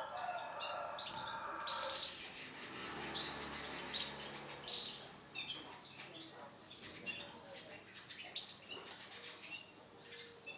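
Female Isabel canary chirping: short, high call notes repeated at irregular intervals, not a continuous song.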